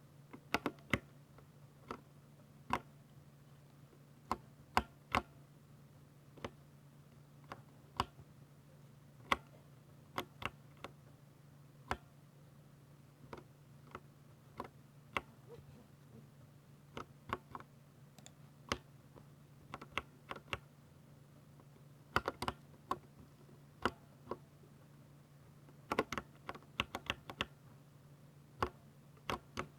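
Keys being typed on a 60% mechanical keyboard with Ducky silver switches: sharp, irregular keystrokes a few a second, with quicker runs of typing about two-thirds of the way in and again near the end. A steady low hum runs underneath.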